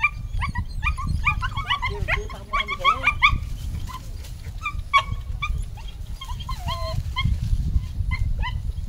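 A litter of Belgian shepherd puppies yelping and whining in many short, high cries, thick and overlapping for the first three seconds or so and then more scattered. It is distress crying from puppies that cannot climb back up a concrete ledge.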